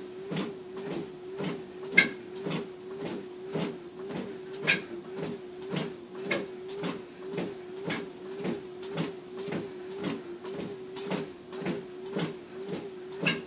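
Treadmill with a person walking on an incline: the belt motor's steady hum, its pitch dipping slightly with each step, and about two footfalls a second thudding on the belt, with a sharper knock about two seconds in.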